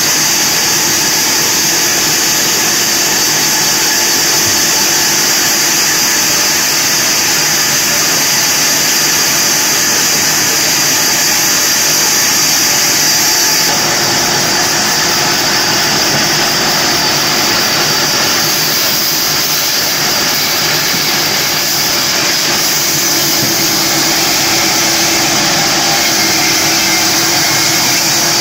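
Large sawmill band saw running steadily and sawing through a log, a continuous loud high-pitched hiss from the blade and motor. The sound shifts slightly about halfway through.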